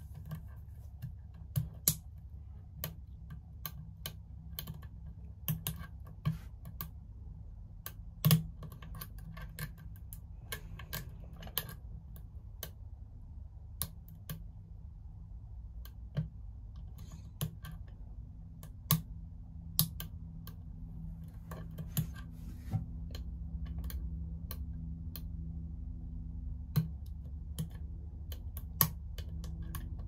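A lock pick clicks and ticks irregularly against the wafers of a vintage Yale wafer padlock as it is picked one wafer at a time under tension, with a few sharper clicks standing out. A low steady hum runs underneath.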